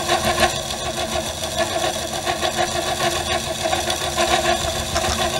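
Benchtop milling machine running a slitting saw through an aluminium block: a steady machine hum with the saw teeth chattering in the cut. A few faint ticks, which the machinist takes for hard inclusions in the 6061 aluminium striking the blade.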